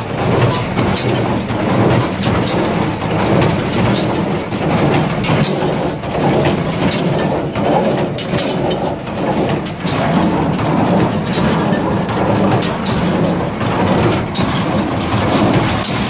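Bamford baler running off a tractor's PTO: steady, loud mechanical clatter with frequent sharp clicks and knocks over a low drone.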